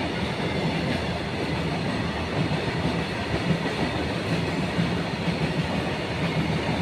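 Freight train of oil tank wagons passing at speed, with a steady noise of steel wheels running on the rails.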